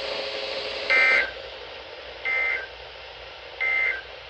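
Emergency Alert System end-of-message data tones from a NOAA Weather Radio broadcast: three short bursts of two-pitch digital screech, about a second and a half apart, over steady radio hiss. They signal that the alert message has ended.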